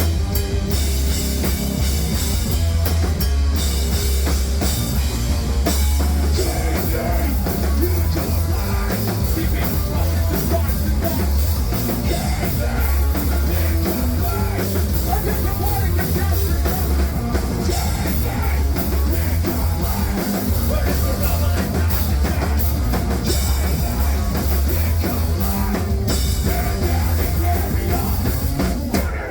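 Hardcore punk/metal band playing live at full volume: heavily distorted guitars, heavy bass and pounding drums, with shouted vocals in places. The music stops abruptly at the very end.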